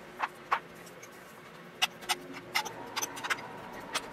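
Spice shaker being shaken over a glass baking dish of raw chicken: about nine short, sharp shakes, unevenly spaced.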